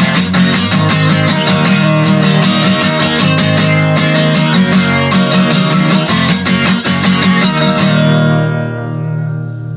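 Guitar strummed hard in a fast, driving rhythm, then a final chord left ringing and fading away about eight seconds in.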